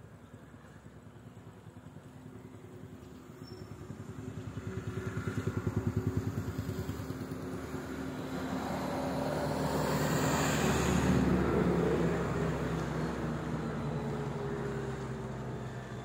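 A motor vehicle's engine running as it passes by, swelling from quiet to loud with a fast, pulsing beat, loudest about two-thirds of the way in, then fading.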